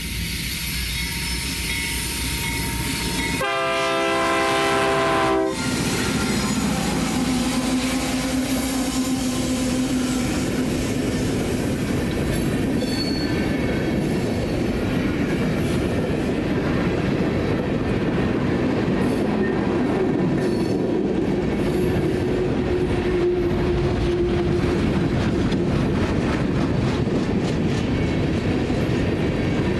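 Freight train's diesel locomotives approaching and sounding the horn in one blast of about two seconds, about three seconds in. Then the open-top coal cars roll past with a steady rumble and clatter of wheels on the rails, and faint wheel squeal on the curve twice.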